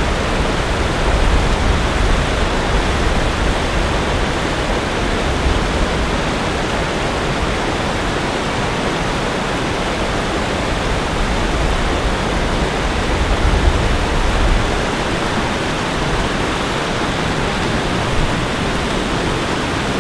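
Water rushing over a low rocky weir and around the angler's legs, a steady loud rush, with a deep rumble that swells a couple of times.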